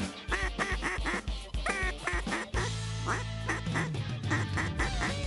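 Ducks quacking in quick runs of several calls a second, over background music with a steady beat and bass line.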